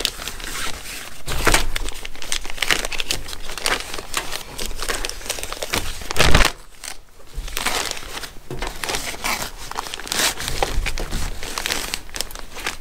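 Thin plastic bag crinkling and rustling as a pair of welding gloves is stuffed back into it by hand, with the loudest rustle about six seconds in and a short lull just after.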